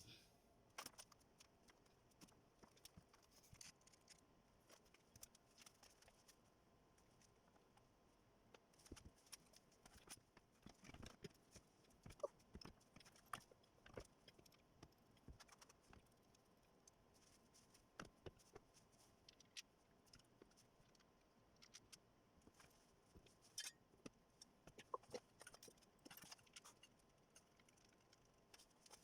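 Near silence with faint, scattered clicks and knocks of tools and metal engine parts being handled.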